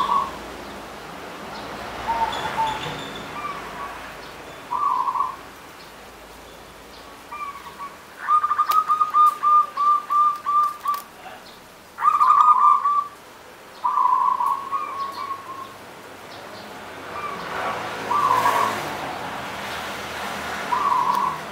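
Zebra dove (perkutut) cooing: short phrases of soft coos, including a quick run of repeated short notes about eight seconds in and other brief phrases spread through.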